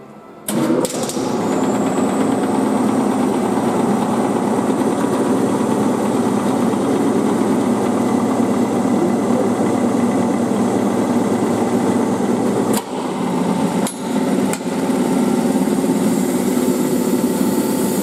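A vacuum-chamber pump switched on about half a second in, running with a loud, steady, rattling drone, with two short dips in level about two-thirds through.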